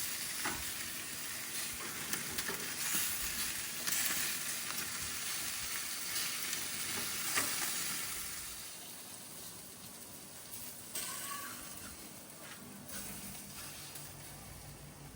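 Meat sizzling and crackling over charcoal on a mangal grill, the fat spitting in a steady hiss that eases off about eight seconds in. A few light knocks come in the second half.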